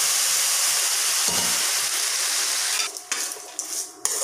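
Ridge gourd pieces sizzling loudly in hot oil in an aluminium kadai as water is sprinkled over them. The hiss stops abruptly about three seconds in, and a metal spatula then scrapes and knocks against the pan as the vegetables are stirred.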